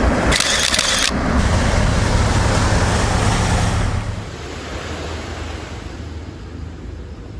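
Suzuki Savage 650's single-cylinder engine running steadily, with a loud rush of noise through the first second. About four seconds in the engine sound gives way to a quieter, even wash of wind and waves.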